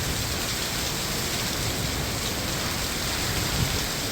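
Heavy typhoon rain falling in a steady, dense rush, with a low rumble of strong wind underneath.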